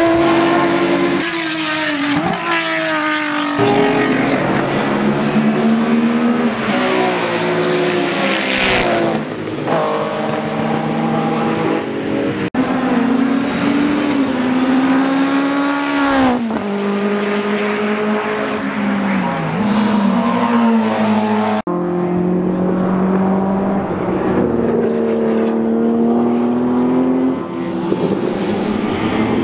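Historic DTM touring cars and DRM racing cars passing at speed, their loud engines rising and falling in pitch through gearshifts. One pass follows another, and the sound jumps abruptly between them a few times.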